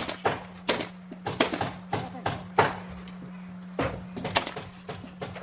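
About a dozen irregular sharp knocks and thuds of wood being worked in timber building work, over a steady low hum.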